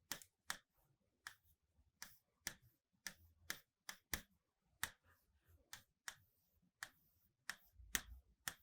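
Faint, sharp, irregular clicks of a pen on a writing surface as a calculation is written out, roughly two a second, over otherwise near silence.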